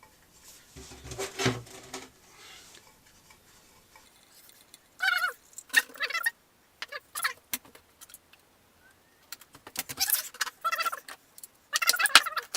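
Metal hand tools clinking and squeaking at the motorcycle engine's oil drain plug as it is worked loose. The plug is tight. The sounds come in short intermittent bursts of clicks and squeaks, busier near the end.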